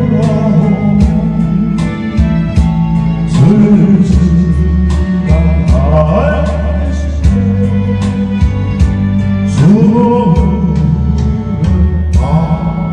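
Music: a slow ballad with a vibrato-rich melody line over bass and a steady drum beat.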